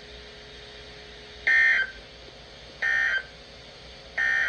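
NOAA Weather Radio SAME end-of-message data bursts: three short, screechy two-tone digital bursts about a second and a half apart. They mark the end of the severe thunderstorm warning broadcast.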